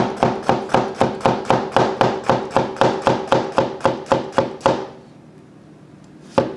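Cleaver chopping through a jalapeño onto a cutting board in quick, even strokes, about four a second, stopping about two-thirds of the way through. A single sharp knock follows near the end.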